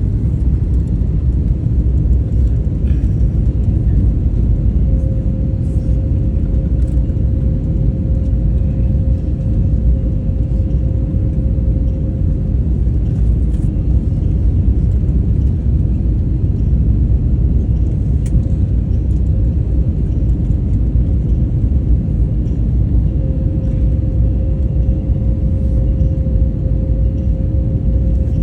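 Airbus A321LR neo cabin noise: a steady low rumble of engines and airflow. A faint steady hum rises out of it twice, for several seconds each time.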